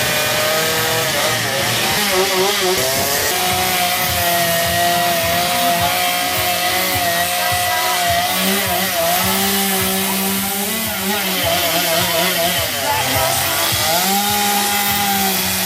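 Chainsaw running hard as it cuts into a log, its engine pitch dipping and rising again several times as the bar bites into the wood and frees up.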